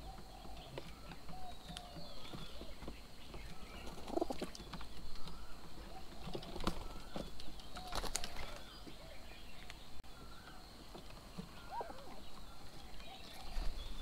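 Birds feeding at a bird table: wings flapping as birds take off and land, with a burst of wing flaps about eight seconds in as a myna flies up. Light taps and short, scattered bird calls.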